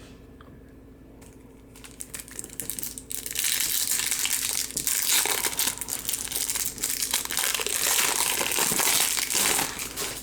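Trading card pack wrapper being torn open and crinkled by hand. It is quiet with a few small clicks at first, then a steady crackling crinkle from about three seconds in.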